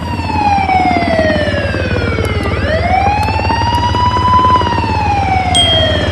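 Ambulance siren on a slow wail, its pitch sliding down, then back up, then down again, each sweep taking about two and a half seconds, over a steady low hum. A short high beep sounds near the end.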